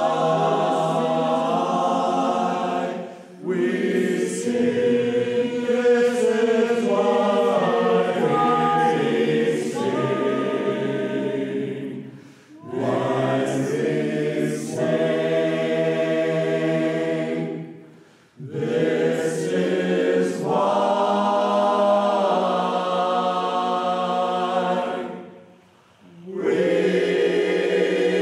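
Men's chorus singing unaccompanied in multi-part harmony, held chords in phrases broken by brief pauses for breath four times.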